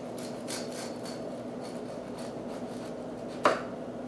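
Serrated bread knife sawing back and forth through the crust of a loaf of beer bread, a soft rasp on each stroke about every half second. One sharp knock near the end as the slice comes free.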